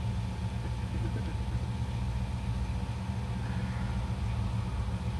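A running engine idling with a steady low hum, and no shot or impact.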